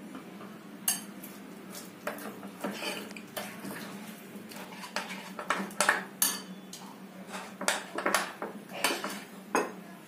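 A steel spoon stirring thick gram-flour batter in a glass bowl, with irregular clinks and scrapes of the spoon against the glass as water is worked into the batter to break up lumps. The clinking is busiest around the middle.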